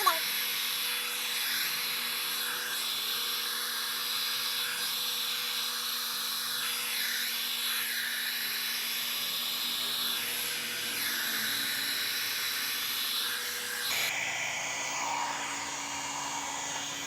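One-step hot air brush (hair dryer and styler) running steadily, its motor whirring and air rushing as it is drawn through the hair. About fourteen seconds in the sound changes, its high hiss dropping.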